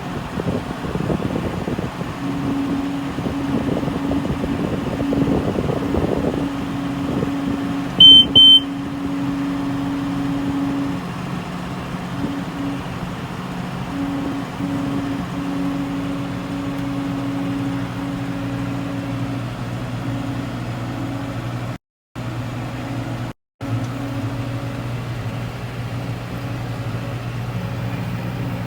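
Engine running steadily with a low, even hum, and a sharp, loud double electronic beep about eight seconds in. The sound cuts out briefly twice near the end.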